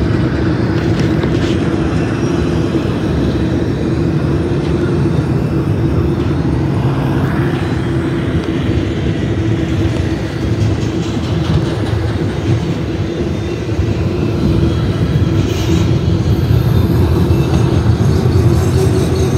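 Freight cars of a BNSF intermodal train rolling past close by, spine cars carrying truck trailers: a steady, loud rumble of steel wheels on the rails with a constant hum.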